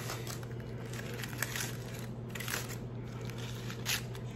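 Heavy aluminium foil being peeled open by hand, crinkling in a few separate strokes, over a steady low hum.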